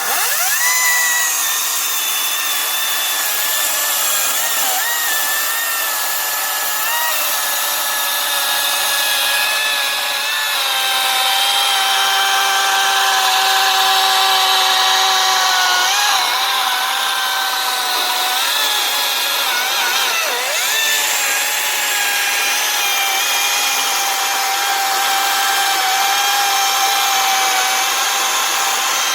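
Kobalt 40-volt cordless brushless electric chainsaw running and cutting through wood: a steady motor whine whose pitch dips and recovers several times as the chain bites and bogs in the cut.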